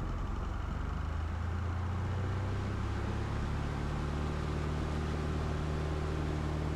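Cessna Skyhawk's propeller engine running at takeoff power during the takeoff roll, a steady drone whose pitch shifts slightly about three seconds in.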